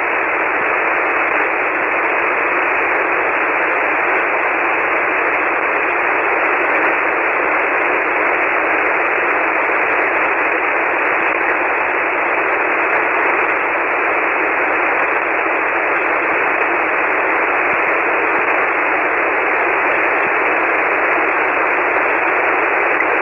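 Steady, even hiss of band noise from an HF ham radio receiver on single sideband in the 40-metre band. It is squeezed into the narrow voice passband, with no station transmitting between overs.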